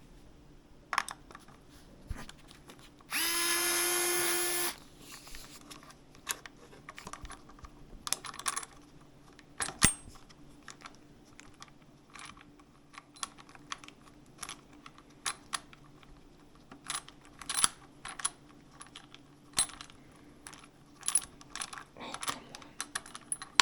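A power driver runs briefly at a steady pitch for about a second and a half, unscrewing the handle from an electric scooter's handlebar, followed by many light clicks and clinks of small metal parts and tools being handled.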